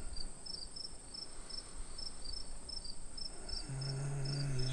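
Crickets chirping in a steady, evenly repeating pulse, the stock sound effect for a dull, awkward silence. A low steady hum joins about three and a half seconds in.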